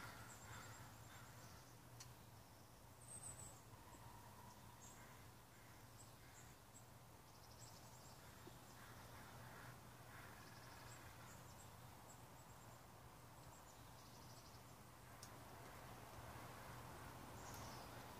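Faint outdoor ambience: scattered short, high-pitched chirps and trills over a low steady hum.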